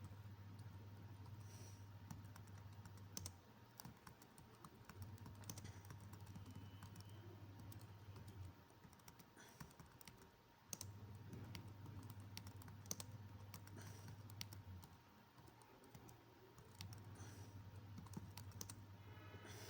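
Faint computer keyboard typing: scattered keystroke clicks at an uneven pace. A low hum comes and goes in stretches of a few seconds.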